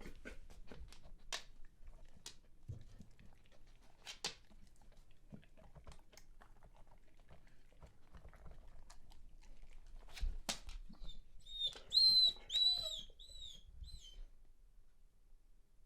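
Scattered soft clicks and taps, then near the end a run of five or six short, very high-pitched whimpers from a dog pining while left alone.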